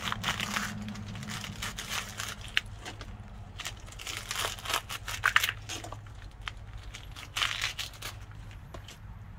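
Water-soaked loofah gourd skins being peeled and torn off by hand: wet crinkling and tearing in irregular bursts, with a few sharp clicks, loudest about five seconds in.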